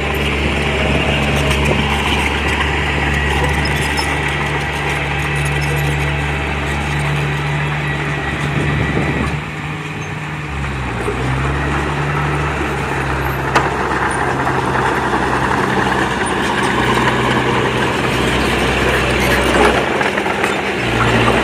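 Diesel engine of earthmoving equipment running steadily, with its note dipping and shifting about halfway through, then picking up again.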